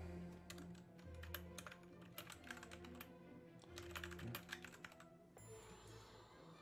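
Typing on a computer keyboard: quick clusters of keystroke clicks that stop about five seconds in, over quiet orchestral music.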